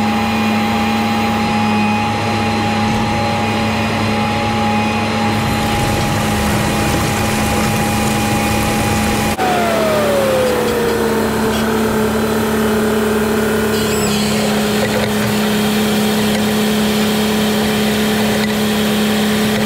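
Tractor engine running steadily under load in the field, with a steady high whine over it. About halfway the sound cuts to a Fendt tractor at work, where a whine falls in pitch and then holds.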